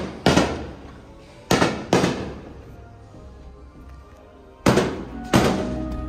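Fireworks bursting at sea: five sharp bangs, each trailing off over about a second. The first comes alone, then two about half a second apart, then a pause of nearly three seconds before two more. Music comes in underneath near the end.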